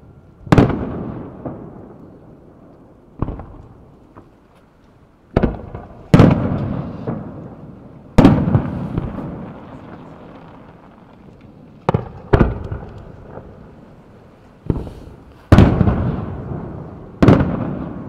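Aerial firework shells at a Japanese fireworks display bursting with about ten sharp booms at irregular intervals. Each boom trails off into a rolling echo.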